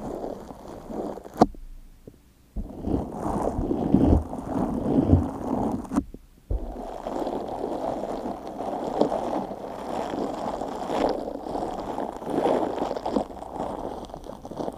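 Green slime squished and pressed with a small round bristle brush, giving wet, sticky squelching sounds, with brief pauses about two and six seconds in.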